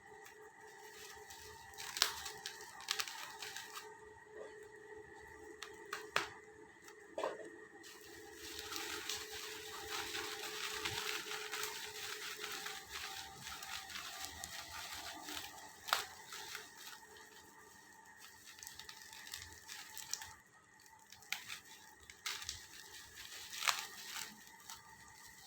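Packaging being handled and opened: crinkling and tearing of wrapping, densest in the middle stretch, with scattered sharp clicks and taps throughout.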